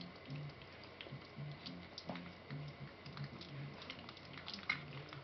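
Young puppies lapping and smacking at soft mush in a food dish: a quick, irregular run of small clicks and ticks, with one sharper click near the end.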